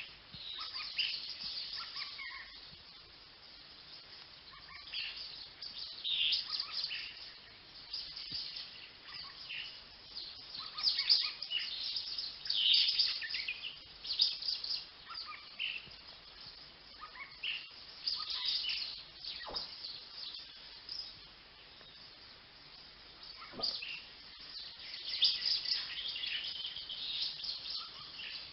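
Finches singing and calling: clusters of short, high chirps and quick trills, several in a row, with quieter stretches between.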